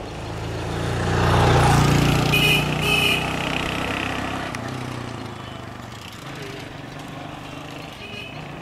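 A motor vehicle passes close by: its engine noise swells over the first two seconds and then fades slowly. Two short horn toots sound in the middle.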